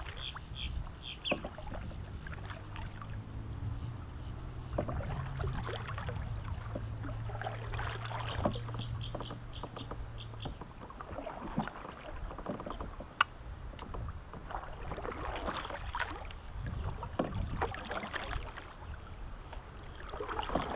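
Native Watercraft Slayer Propel 10 kayak moving through calm water: water trickling and lapping along the hull, with scattered light knocks and clicks from the boat. A low steady hum runs through roughly the first half, and a sharp click comes about two-thirds of the way in.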